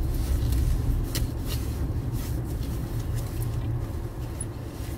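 Road noise inside a moving car: a steady low rumble from the engine and tyres, with a few light clicks.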